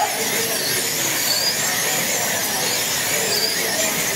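Wing-class slot cars racing on a multi-lane track, their electric motors whining high, the pitch rising and falling over and over as the cars speed up and brake through the turns, over a steady hiss.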